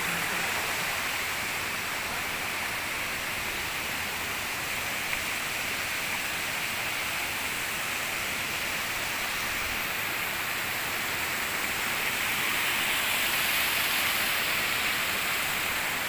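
Steady rush of water pouring over the low rock ledges and small cascades of a waterfall and its rocky stream. It grows a little louder for a few seconds near the end.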